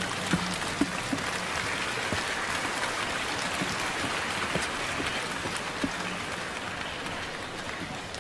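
Arena crowd noise: a steady hiss of many spectators clapping and chattering, swelling a little a few seconds in. A few sharp knocks in the first second.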